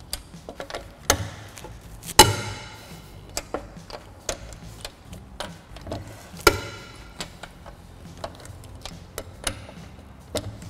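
Lug nuts on an alloy wheel being loosened with a 19 mm socket and breaker bar: two loud metallic cracks that ring briefly, about two seconds in and again about six and a half seconds in, as nuts break free. Light clicking of the steel socket being fitted onto and pulled off the nuts runs between them.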